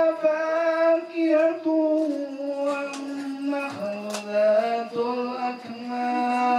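Singing of a slow melody in long held notes.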